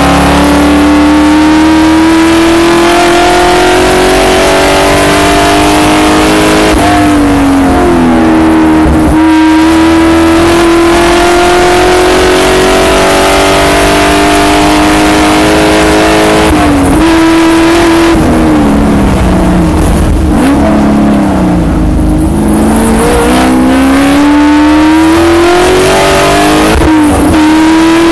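In-car sound of a Spec Corvette's V8 racing engine under hard acceleration. The pitch climbs through the gears with quick shift dips after about seven and nine seconds, then a long pull. It falls as the driver lifts and downshifts for a braking zone, then climbs again with another shift near the end, over steady wind and tyre noise.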